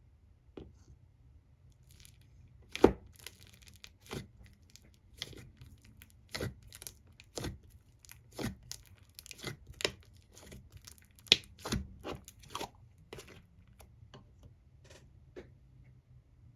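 Foam slime being pressed and squished by hand, giving a run of sharp crackles and pops. The loud pops come about once a second.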